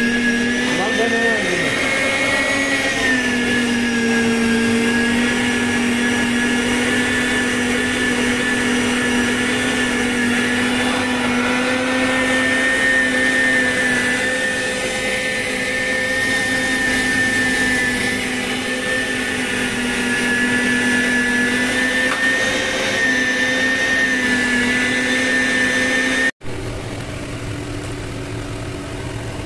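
Electric meat grinder running steadily with a motor whine as it minces soaked chickpeas and beans into falafel paste. The sound cuts off suddenly near the end, leaving a quieter, lower hum.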